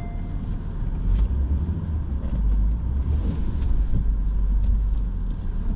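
Low, steady rumble of a lifted Honda SUV crawling over a rough dirt and rock trail, heard from inside the cabin, with a few scattered light clicks and knocks.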